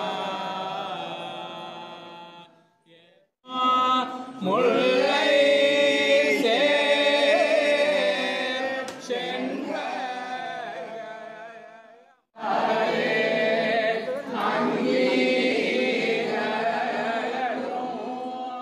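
Devotional chanting by a group of voices in unison, in long phrases with two short breaks for breath.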